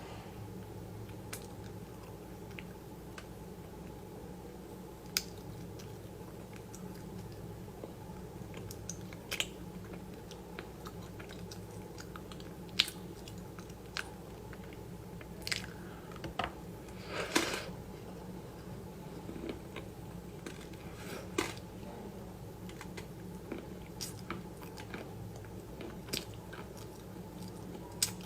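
Close-miked eating: scattered sharp crunches and mouth clicks while chewing, with a longer crunching bite about seventeen seconds in, over a steady low hum.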